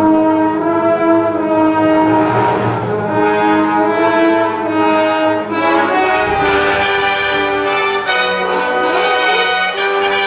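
Large brass band of trumpets, horns, euphoniums and tubas playing full held chords that move every second or two.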